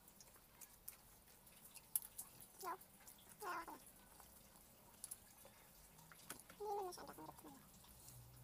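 A cat meowing a few times: short calls that each fall in pitch, the clearest about three and a half seconds in and two more near the end. Faint clicks run underneath.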